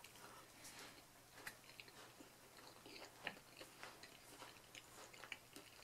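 Faint chewing of a mouthful of pineapple pizza with the mouth closed: a scatter of soft, short mouth clicks.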